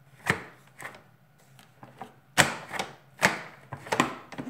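Hard plastic clicks and knocks as the parts of a Dyson DC37 vacuum cleaner are fitted back together, in an irregular string of sharp strokes, the loudest a little past halfway.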